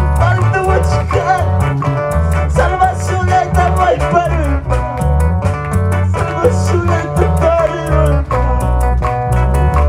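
Live worship-band music: an electronic keyboard plays a bending melody over electric bass guitar and a steady, quick beat.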